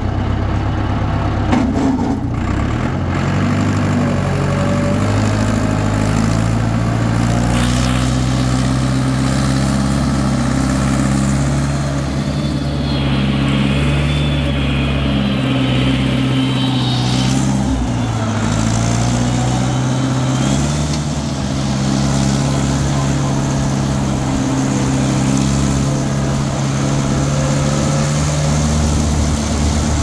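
Farm tractor's diesel engine running steadily as the tractor drives along a dirt track. Its note dips briefly once, about halfway through.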